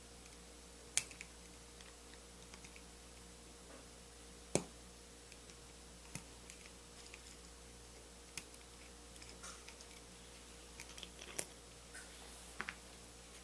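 Small metal clicks and taps from a lock cylinder and its parts being handled during disassembly, scattered and irregular, with a sharper knock about a second in, another about four and a half seconds in, and the loudest near the end.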